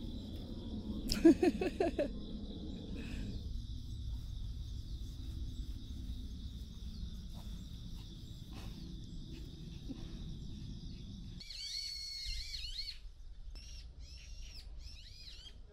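Outdoor garden ambience: a steady high insect buzz over a low wind rumble, broken by a short loud call of several quick pulses about a second in. Near the end the buzz and rumble stop abruptly, and birds chirp in short repeated calls.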